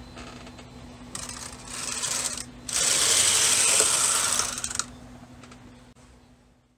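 Carriage of a Brother KH-260 bulky knitting machine being pushed across the needle bed to knit one row: a rough, hissing rattle that grows louder partway through, then fades away.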